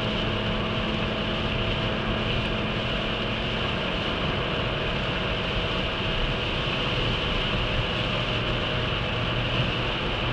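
Cabin sound of a Skoda Fabia 1.2 HTP three-cylinder petrol engine held at high revs under full acceleration, mixed with steady wind and road noise as the car slowly gains speed.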